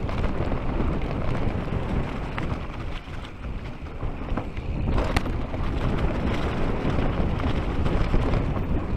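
Mountain bike rolling fast down a dirt forest trail, heard through an action camera's microphone: a steady low rumble of knobby tyres and wind buffeting the mic, with the bike rattling and a sharp knock about five seconds in.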